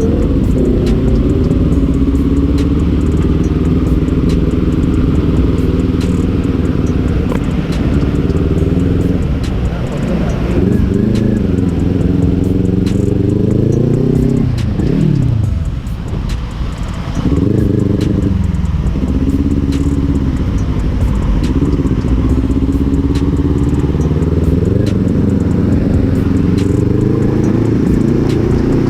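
Kawasaki Ninja 400's parallel-twin engine running while riding, its pitch climbing and dropping through the gears. About fourteen seconds in it winds down and goes quieter, then picks up and climbs again.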